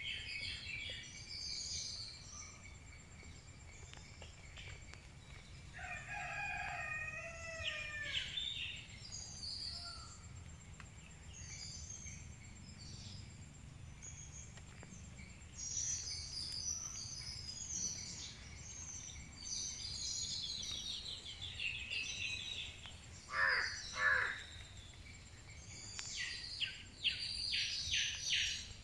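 Outdoor ambience of birds chirping and calling, with a rooster crowing once about six seconds in. Two loud short notes stand out a little after two-thirds of the way through, and a run of quick chirps follows near the end.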